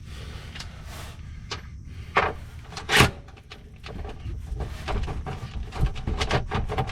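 Scattered clicks, knocks and scrapes of hand tools working on a nut at the hitch mounting point, with a louder rasp about three seconds in.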